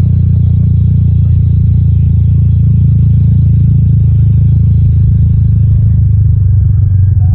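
Motorcycle riding at a steady speed: a loud, steady low rumble of engine and road noise.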